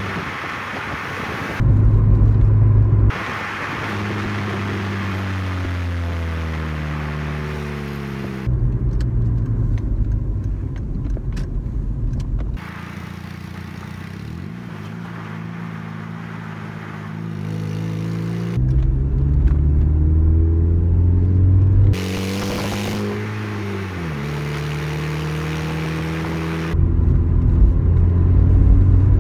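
Chrysler PT Cruiser's exhaust running through an opened homemade throttle-body cut-out valve while driving; the engine note rises and falls as the car accelerates and changes gear. The loudness jumps up and down abruptly several times, the louder stretches heavy in deep low notes.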